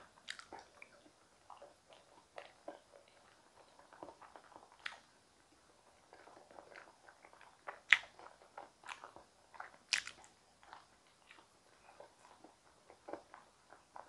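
Close-miked chewing and biting of whole steamed potatoes dusted with purple sweet potato powder: soft, irregular mouth sounds and small clicks, with two sharper clicks about eight and ten seconds in.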